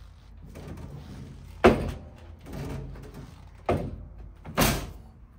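Manual sheet-metal folding machine being worked on a stainless steel sheet: three sharp knocks as the clamping beam and bending leaf come down and fold a 5 mm edge to 90 degrees, the first knock the loudest.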